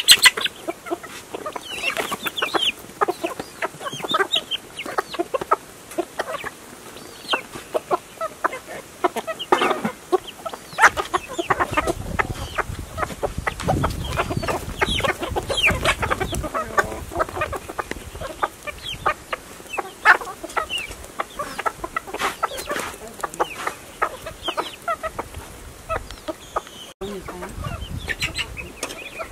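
A flock of free-ranging hens and roosters clucking, many short calls one after another, with a low rumble for a few seconds in the middle.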